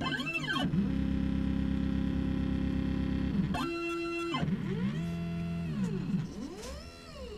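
Stepper motors of a CNC router driving its axes: a pitched whine that holds steady during the longer moves and glides up and back down in pitch as shorter moves speed up and slow down.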